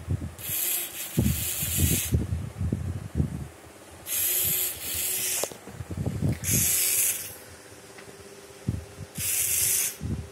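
Small hobby servo motors in a 3D-printed robotic hand buzzing in several short bursts of about a second each as they pull the fingers open and closed, with scattered light knocks and clicks in between.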